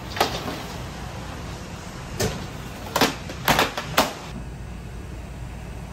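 Metal baking tray knocking and scraping against a deck oven's steel deck and ledge as it is pulled out, with five or six sharp clanks over the first four seconds and a steady low hum underneath.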